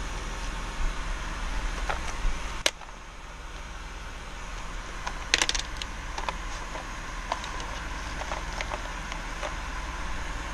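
Clear plastic socket-set cases clicking and clacking as they are handled and slid on a metal display shelf, a few sharp knocks loudest, over a steady background hum.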